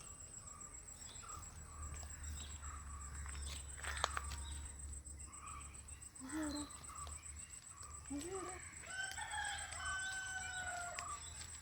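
A rooster crowing, one long drawn-out call about nine seconds in, with short bird chirps scattered around it.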